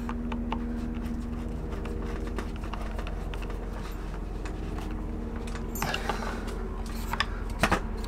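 Small clicks and taps of hands handling and tightening a switch-panel mount, with two sharper clicks near the end, over a steady low hum.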